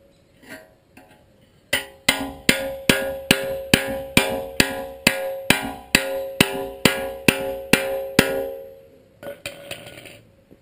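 Hand hammer striking the steel of an excavator bucket's cutting edge and teeth: a few light taps, then a steady run of about seventeen ringing metallic blows, roughly two and a half a second, that stops about eight seconds in.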